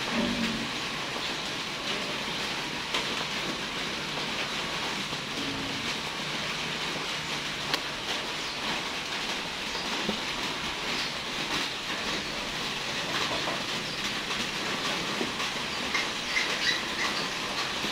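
A steady hissing noise with fine faint crackling throughout, and a few short high chirps near the end.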